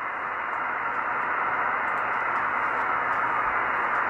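Steady receiver hiss from an Icom IC-9700 in upper sideband, tuned across the FO-29 satellite's downlink passband with no station coming through. The rushing noise is dull, with no high end.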